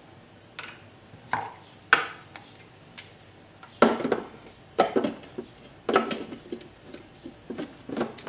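Sharp plastic-on-metal clatters and knocks, about eight of them, as a Thermomix's lid is set on its stainless-steel mixing bowl and worked into place; the louder knocks come from about four seconds in.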